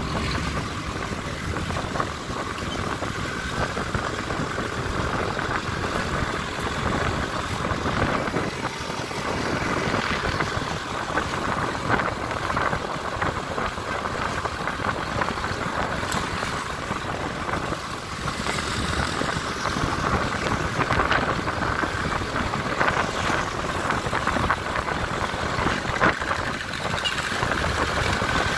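Engine and road noise from a vehicle travelling along a road in traffic: a steady running drone with wind and tyre rush that holds through the ride, with no single event standing out.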